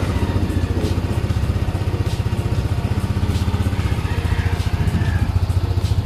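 Yamaha NMAX scooter's single-cylinder engine idling steadily with a fast, even putter, just after being started.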